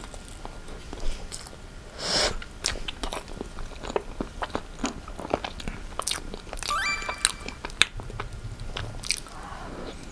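Close-up mouth sounds of eating red velvet cake with cream cheese frosting: soft wet chewing and lip smacks, with many short sharp clicks, some from the fork at the lips.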